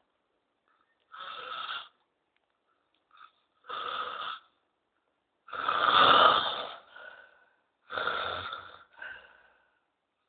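A man snoring in his sleep: four loud snores about two and a half seconds apart, the one about six seconds in the loudest, with fainter breaths between them.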